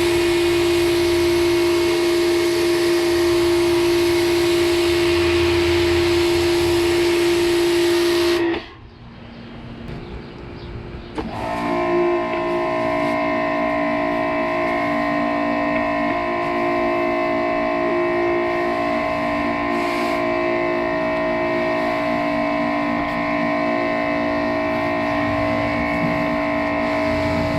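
Ryobi 2000 psi electric pressure washer motor and pump running with a steady whine. It stops abruptly about eight seconds in and starts again about three seconds later at a higher pitch.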